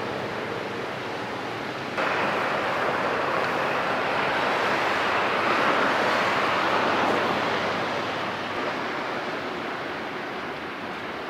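Outdoor wind and sea-wave noise, a steady hiss with no engine tone. It jumps louder suddenly about two seconds in, swells, then eases off toward the end.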